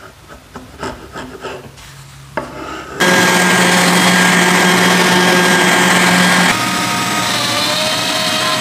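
A hand chisel pares a wooden herringbone tabletop in several short scraping strokes. About three seconds in, a random-orbital sander with a dust hose attached starts and runs loud and steady. Midway through, the sound switches to a Milwaukee M18 cordless drill running steadily, a little quieter.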